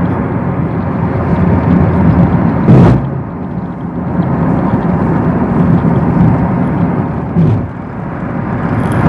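Steady road and wind noise inside a moving car's cabin, with one sharp knock a little under three seconds in.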